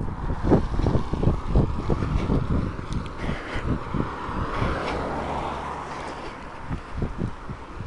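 Cars passing on a rain-wet road with tyre hiss, over wind on the microphone and low thuds, about three a second, from running footsteps jolting the camera.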